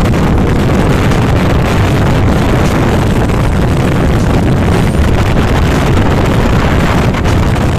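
Wind buffeting the microphone of a moving motorcycle, a loud, steady rush with mixed-in riding noise.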